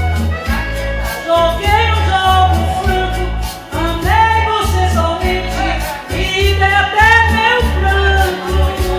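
Music with a singing voice over a steady, pulsing bass beat.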